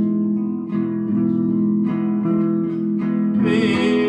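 Instrumental music carried by a strummed acoustic guitar playing held chords. A wavering higher note comes in about three and a half seconds in.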